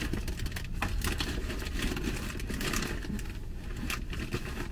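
Rustling and crinkling of snack packaging being handled, with scattered small clicks and knocks, over a steady low rumble inside the car.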